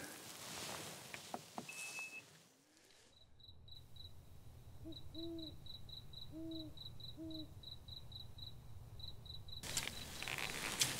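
A cricket chirping steadily, about three high chirps a second, with three low owl hoots in the middle. Before it comes a couple of seconds of faint hiss and a few clicks, which cut off abruptly.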